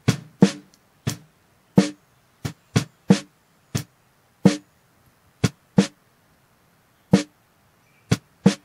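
Snare drum hits from a drum kit heard through the snare mic's tightly set noise gate on a Presonus ACP88: about fourteen sharp cracks at an uneven pace. Each hit is cut off quickly into silence, so the hi-hat between hits is gated out.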